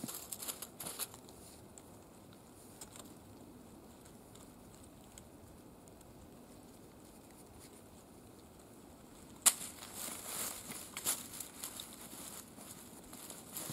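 Hand handling of a rope and a leather-strapped wool bedroll on dry leaves: crackly rustling at first, then several seconds of faint rope-coiling sounds. About nine and a half seconds in there is one sharp click, followed by rustling and scattered clicks as the leather belt and bronze buckle are worked loose.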